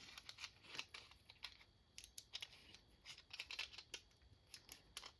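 Faint, irregular small clicks and taps from handling a rotary tool, working its little locking pin to lock the shaft and fit an accessory.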